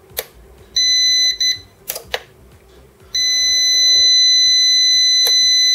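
Prolink PRO701SFC UPS alarm buzzer sounding after the unit is switched on from its battery, unplugged: a short high beep breaking into quick stutters about a second in, a few sharp clicks, then a continuous high beep from about three seconds in. The continuous beep signals a fault inside the unit.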